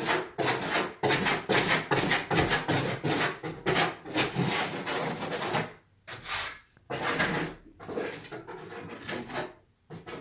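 Trowel scraping and spreading mortar across a floor in quick repeated strokes, pausing briefly about six seconds in and again near the end. The mortar is being built up into a slope level with the shower drains.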